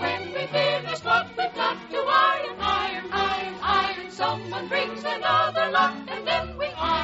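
A choir singing with an orchestra, the voices wavering on held notes.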